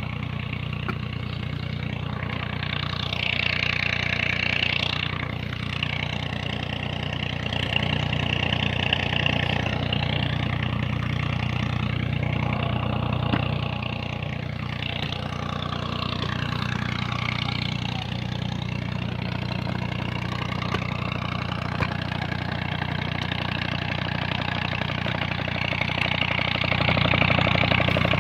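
A tractor's diesel engine runs steadily, driving a tubewell pump that lifts water from about 300 ft down.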